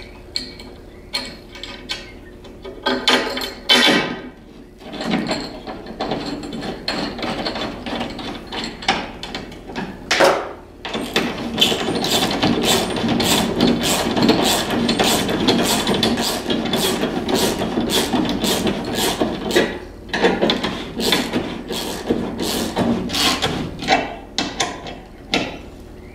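Hand ratchet wrench clicking as it drives a lag bolt through a steel sliding-door track into the wall. There are a few scattered clicks first, then rapid continuous clicking through the middle, then slower, separate clicks near the end.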